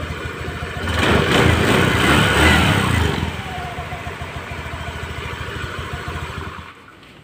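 Honda Spacy scooter's fan-cooled single-cylinder engine running. It is revved up briefly about a second in, settles back to idle, and is switched off near the end. It runs smoothly, without its earlier clacking, now that the worn cooling-fan boss has been taken up with a ring so the fan no longer wobbles.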